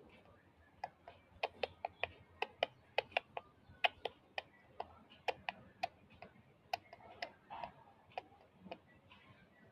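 A run of sharp, irregular clicks, about two to four a second with uneven spacing.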